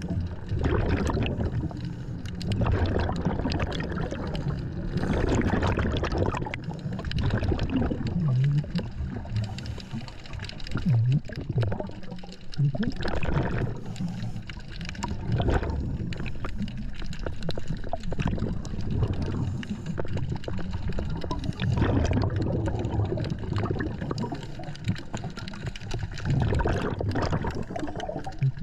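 Scuba diver breathing through a regulator underwater: rushes of exhaled bubbles coming back every two to three seconds.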